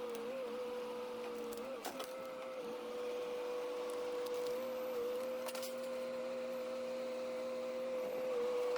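An engine running steadily with a constant hum that dips briefly in pitch a few times, as under changing load. A few sharp knocks about two seconds in, and another a little past halfway.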